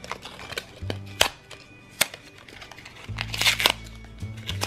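A small plastic Shopkins blind basket snapped open with several sharp clicks, then crinkling of the foil bag inside, over background music.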